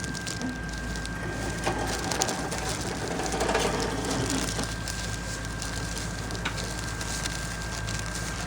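Handling noises from making a sticky-rice ball at a food stall: scattered crackling and rustling, busiest about three and a half seconds in, over a steady low hum and a thin high whine.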